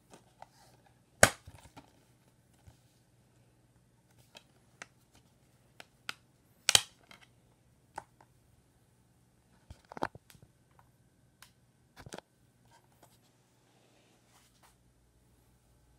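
A plastic DVD case being handled, snapped open and the disc pried off its centre hub: a few sharp plastic clicks and snaps, the loudest about a second in, with lighter taps and rustles between.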